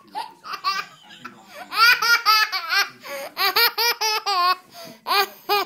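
Toddler girl laughing hard, in three runs of rapid high-pitched "ha-ha-ha" bursts.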